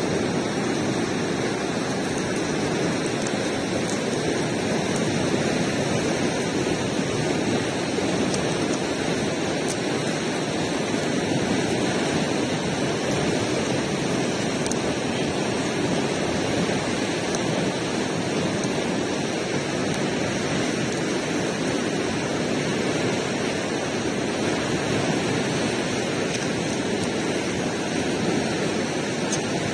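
A steady, even rushing noise that holds unchanged throughout, with a few faint ticks above it.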